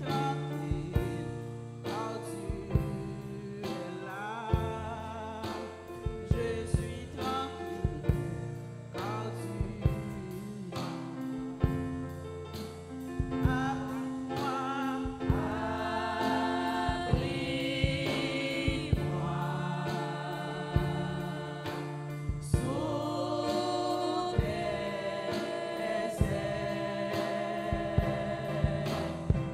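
Live gospel praise and worship singing: women's voices, a lead singer with backing singers, over instrumental backing with a steady drum beat.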